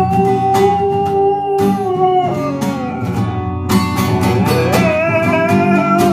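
Background music led by guitar, with a held, sliding melody line over a steady strummed accompaniment.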